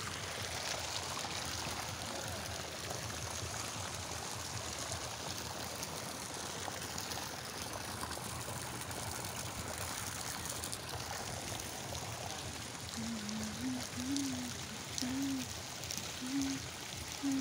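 Hot-spring water pouring and splashing steadily into a bathing pool. Near the end, a faint wavering pitched sound comes in over it.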